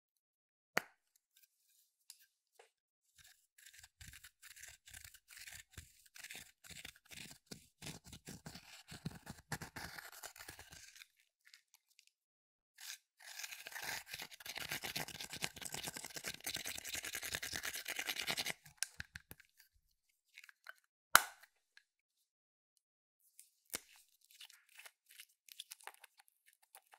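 Slime being squished and mixed by hand, with bursts of sticky crackling and popping and a long stretch of steady crackle. There are two single sharp clicks, one about a second in and one near the end.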